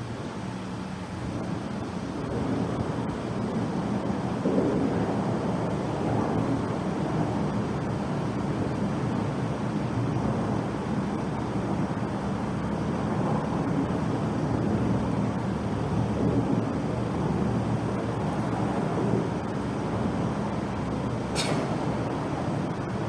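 Road traffic passing with a steady low rumble that swells and fades, and one sharp click near the end.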